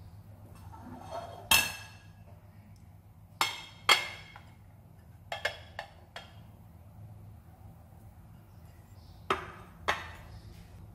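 A ceramic bowl and a square ceramic plate knocking and clinking against each other and the counter as fried rice packed in the bowl is turned out onto the plate: a series of short, sharp clinks and knocks, the loudest a few seconds in and two more near the end.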